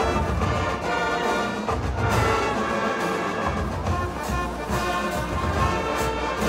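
Brass-heavy orchestral music played back over a PA loudspeaker.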